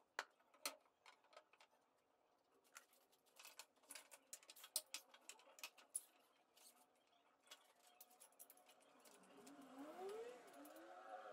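Faint scattered clicks and taps of a strap clamp's webbing and metal corner pieces being laid around a glued wooden frame and pulled tight. Near the end a faint wavering, gliding whine rises.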